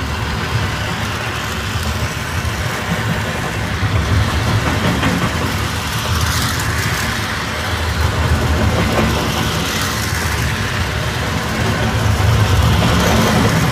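Lionel Santa Fe snowblower toy locomotive running on model-railway track: a steady motor hum with the wheels rumbling on the metal rails. It swells louder three times as the train comes round close by.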